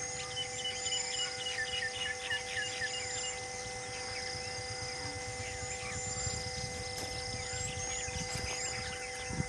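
Wild birds calling, with a quick run of short repeated notes in the first few seconds and scattered whistles after, over a steady hum.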